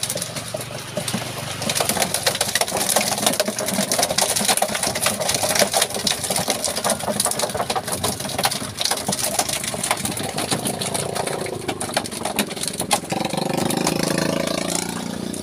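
Rapid, irregular splashing and slapping as freshly netted patin (striped catfish) thrash in the water of a plastic barrel, over a steady low hum.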